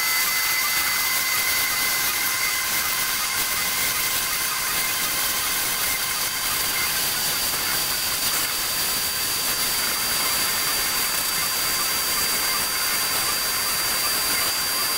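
Plasma cutter cutting steel plate: a steady, even hiss with a thin high whine above it, cutting off suddenly just after the end.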